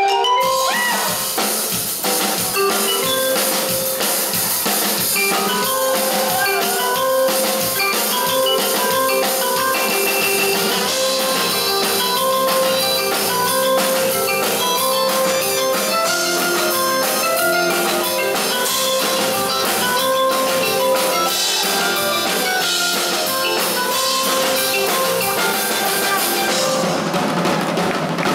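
Live band music: a drum kit keeps a busy beat under a melodic line of short, repeated pitched notes, and the music changes character near the end.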